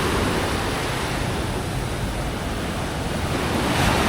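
Surf washing onto a beach, a steady rush of waves, with wind buffeting the microphone in a low rumble.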